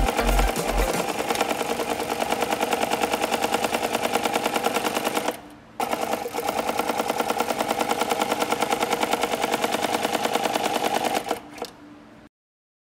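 Dematron HD-C 441 cylinder-arm walking-foot leather sewing machine stitching through thick leather with a rapid, even clatter of needle strokes. It stops briefly about five seconds in, starts again, and stops near the end.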